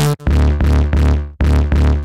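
Dawesome Novum granular software synthesizer playing its 'Lead Bass Syn' preset: a deep electronic synth bass line. There is a brief gap just after the start, then one longer note that fades out a little past halfway, and short repeated notes follow.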